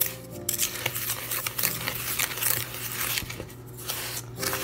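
Plastic spoon stirring dry ground matza and powders in a plastic mixing bowl: a continuous gritty scraping and rustling.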